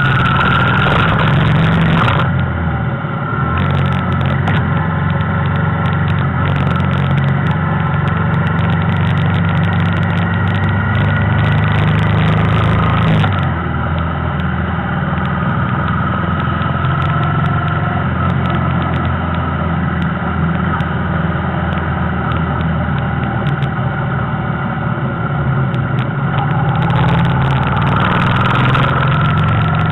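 Motorcycle engine running steadily at road speed, with wind and road noise, easing off slightly about 13 seconds in.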